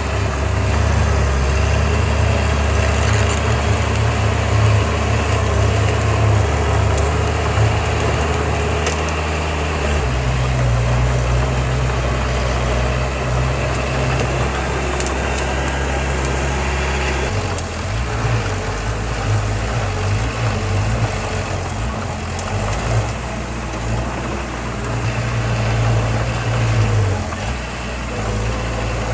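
Heavy diesel earthmoving machinery running steadily, with a deep engine drone whose pitch shifts abruptly about a third of the way through and again a little past halfway as the load or throttle changes.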